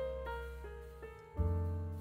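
Background music: piano notes struck a few times a second, each fading, over a low bass line that changes notes about one and a half seconds in.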